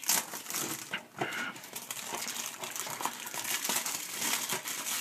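Clear plastic shrink-wrap being torn and peeled off a DVD case by hand, crinkling and crackling irregularly.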